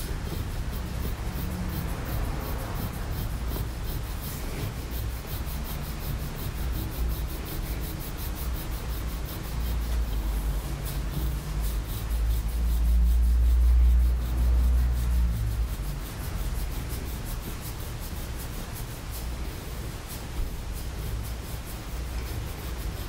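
A stainless-steel massage plate rubbing and scraping along the bare skin of the shin and calf in repeated strokes. A low rumble swells louder about halfway through.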